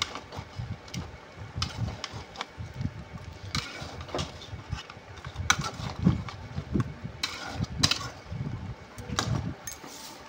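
A spatula stirs and scrapes chicken pieces frying in a metal kadai, making irregular knocks and scrapes against the pan over a low rumble. The meat is being fried until the water it released cooks off.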